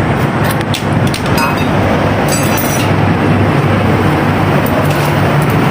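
Steady, loud machine running noise with a low hum, with a few light metallic clinks about a second in and again between two and three seconds in.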